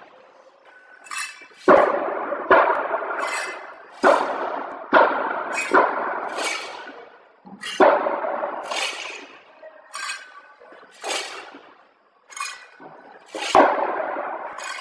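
ZV-320B semi-automatic packing machine handling corn kernels: a clack as each batch tips from the conveyor cups into the chute, followed by a rattling pour of kernels, repeating irregularly about once a second, with short bright hissing bursts in between.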